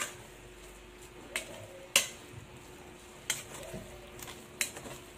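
Metal spoon stirring corned beef and diced potatoes in an aluminium pot, knocking sharply against the pot about five times, the loudest about two seconds in, over a faint steady sizzle of frying.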